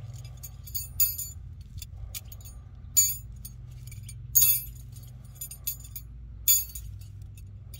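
Hooked metal tent stakes clinking and jangling against each other as a bundle of them is handled and sorted by hand. There are a series of short sharp clinks, the loudest about one, three, four and a half and six and a half seconds in.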